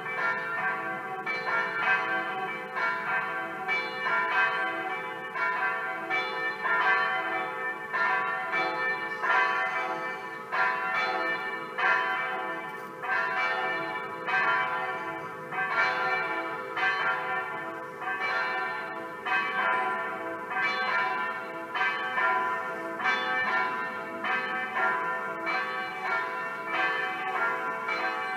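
Electronic simulated church bells played from the tower, ringing a steady peal at about one stroke a second, their tones sustaining and overlapping from stroke to stroke.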